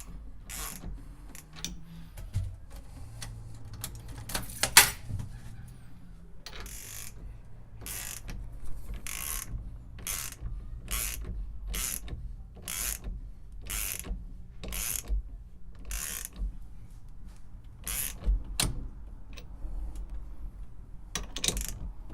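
Hand ratchet wrench clicking in short repeated strokes, about one a second, as the bolts of an aluminum aftermarket steering-wheel hub adapter are tightened down.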